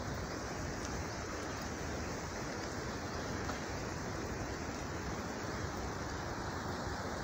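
Avalanche debris of tumbling snow blocks sliding past in a steady rushing noise, like surf.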